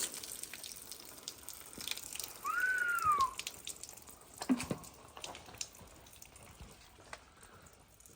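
Water dripping and trickling off a freshly wetted hickory slab in scattered drips. A single short whistled chirp, rising then falling, comes about two and a half seconds in, and a knock about four and a half seconds in.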